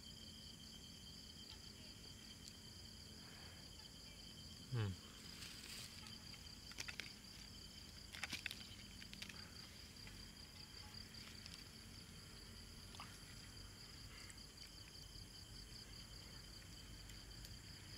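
Insects calling steadily at dusk, a continuous high pulsing trill on two pitches. A brief falling voice sound about five seconds in, and a few faint clicks soon after.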